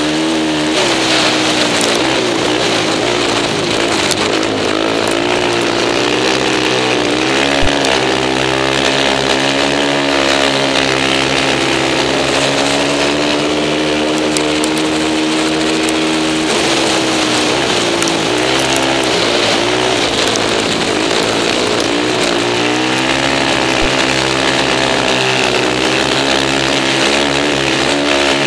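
Suzuki LTR 450 racing quad's single-cylinder four-stroke engine running hard at high revs, heard from on board, its pitch dipping and climbing again several times as the throttle is eased and reopened around the oval track, with a steady rushing hiss over it.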